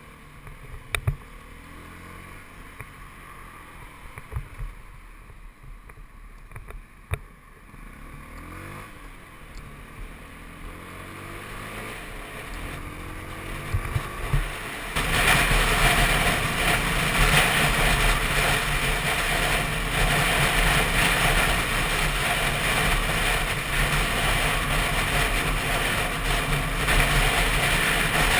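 Motorcycle ride heard from a camera on the rider: in the first half the engine's pitch rises and falls through the gears, with a few sharp knocks on the microphone. About halfway through a loud steady rush of wind noise sets in as the bike gets up to speed on the open road, covering the engine.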